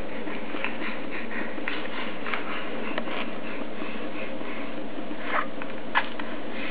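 A baby's small mouth sounds, soft clicks and smacks, over a steady hiss, with a brief squeak about six seconds in.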